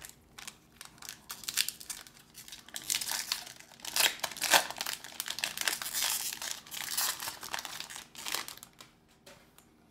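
A Pokémon card booster pack wrapper being torn open and crinkled: a dense run of crackling that dies away about a second before the end.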